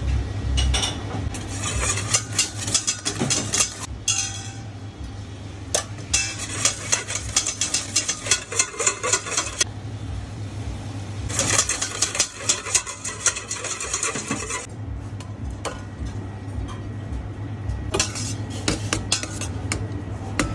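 Wire balloon whisk beating egg yolk in a stainless steel bowl, its wires rattling rapidly against the metal in three bursts of a few seconds each. Near the end a spoon clinks and scrapes in the bowl, and a steady low hum runs underneath throughout.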